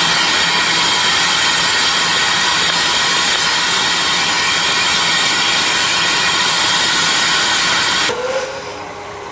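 Hunslet saddle-tank steam locomotive letting off steam: a loud, steady hiss that cuts off suddenly about eight seconds in.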